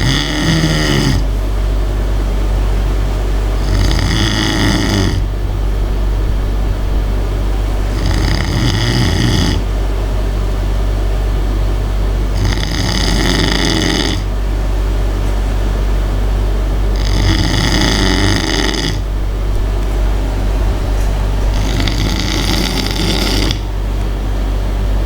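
A sleeping person snoring: six raspy snores, each about a second and a half long, coming roughly every four and a half seconds. A steady low hum runs underneath.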